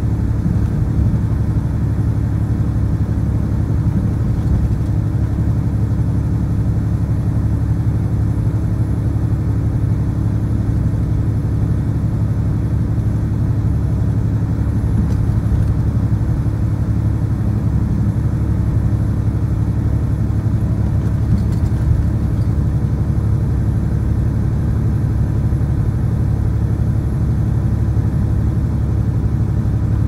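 Semi-truck's diesel engine running at highway cruise with tyre and road noise: a continuous low drone with a steady hum.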